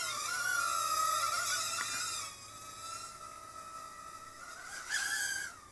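Hubsan Q4 Nano micro quadcopter's tiny coreless motors and propellers whining as it hovers, the pitch wavering with throttle. The whine is louder for the first two seconds, then steadier, and rises sharply near the end before dropping away.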